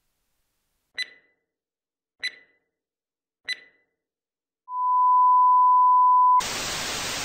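Electronic sound effect: three short pips about a second and a quarter apart, then a steady beep held for nearly two seconds that cuts off into a burst of hiss like TV static.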